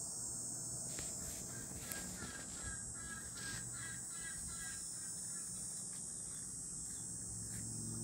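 A steady, high-pitched insect chorus carries on throughout, with soft low clucking from chickens beneath it. From about two seconds in, a bird repeats short chirps about three times a second for a few seconds.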